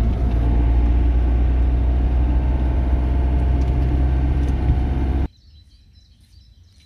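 Camper van driving, heard inside the cab: a steady, loud low rumble of engine and road noise. It stops abruptly about five seconds in, leaving only a faint outdoor background.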